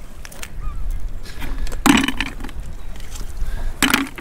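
Two short knocks about two seconds apart as shells are dropped into a white plastic bucket and knock against the other shells and the bucket, over a low steady rumble.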